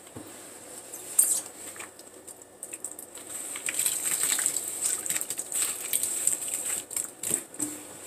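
Soaked floral foam being crushed and squeezed by rubber-gloved hands in soapy water, making irregular wet crackling and squishing. There is one sharp crack about a second in, and the crackling grows denser in the second half.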